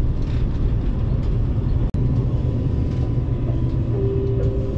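Running noise inside a JR Kyushu 787-series limited express car: a steady low rumble, with a momentary break about two seconds in. About four seconds in, a steady hum of two tones sets in as the train starts away.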